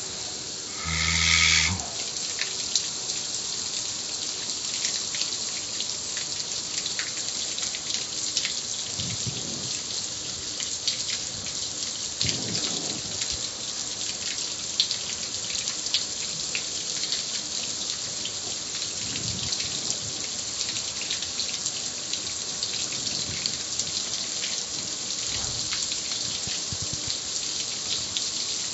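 Garden hose spray hissing and pattering on the steel lid and panel of a gas grill, with many small drip and splash ticks. There is a brief louder burst with a low hum about a second in.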